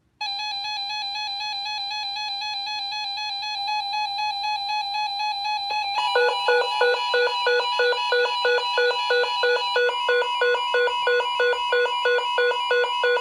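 Electronic alert tones: a steady, buzzy tone that starts suddenly, then from about six seconds in a rapid pulsing beep at about three to four pulses a second, with a steady higher tone joining under the pulses a few seconds later.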